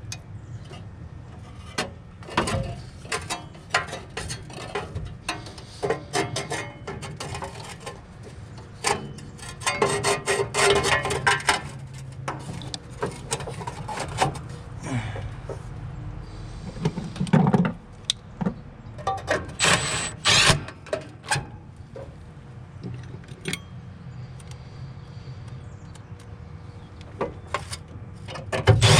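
Metal parts and hand tools as a gas pack's inducer motor is screwed back into place: irregular clicks, clinks and rattles over a steady low hum, with a denser bout of clattering about ten seconds in and again near twenty seconds.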